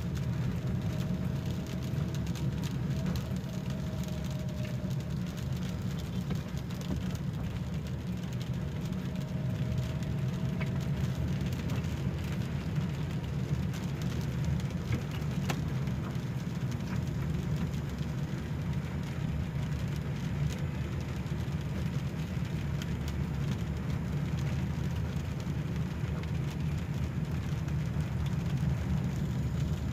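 Steady low rumble of a car's engine and tyres on a wet road, heard from inside the cabin, with scattered light ticks of rain on the windscreen.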